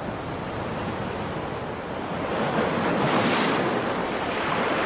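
Sea surf breaking and washing over shore rocks, the rush of water building to its loudest about three seconds in and then easing off.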